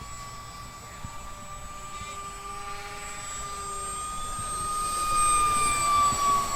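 The 50 mm electric ducted fan of a 4S-powered RC Vulcan model jet whining in flight. It grows louder as the model approaches and passes close about five to six seconds in, the pitch dipping slightly as it goes by.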